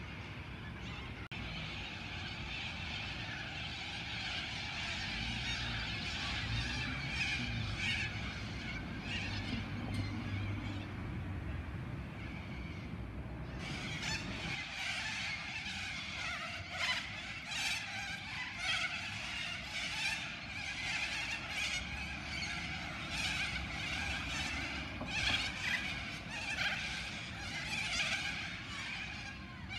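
A big roosting flock of little corellas calling, many harsh, overlapping screeches at once. The screeching starts suddenly about halfway through. Before that there is a steadier, lower background noise.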